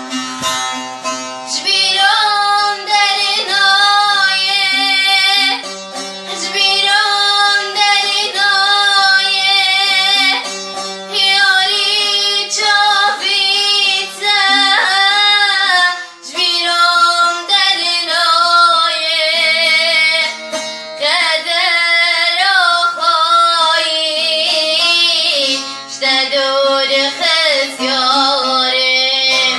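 A Kurdish song sung by a female voice with instrumental accompaniment. The melody is drawn-out and ornamented, with wavering, bending notes in phrases separated by short breaths.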